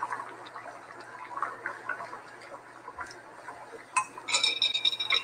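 A pan of jambalaya simmering, with faint bubbling and small ticks. About four seconds in comes a run of bright, ringing metallic clinks, a metal utensil against a dish or pot.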